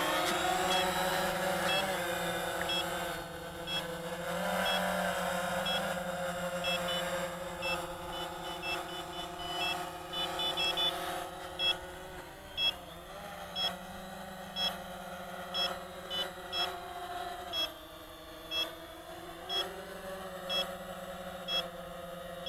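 Quanum Nova quadcopter's motors and propellers humming in flight, the pitch wavering slightly as the throttle changes. From about a third of the way in, short high electronic beeps sound about once a second.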